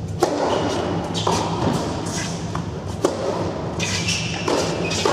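Tennis rally: sharp racket strikes on the ball, a few seconds apart, with fainter hits and bounces between, each ringing on in a large indoor hall over a steady low hum.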